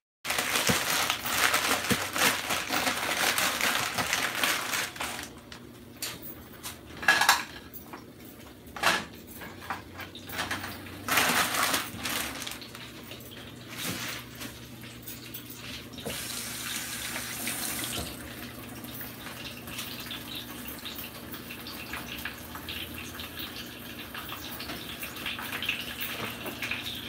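Kitchen work at the stove and counter: a steady hissing rush, loudest for the first few seconds, then a string of knocks and clatter of cookware, then a quieter steady hiss with a low hum.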